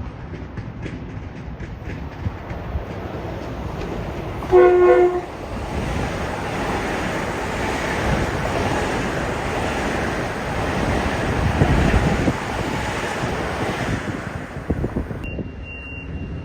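Passenger train on the New Haven Line giving a short blast on its multi-tone horn as it approaches, then running through the station at speed with a rising and fading rush of wheels and rail noise. A steady high beep starts near the end.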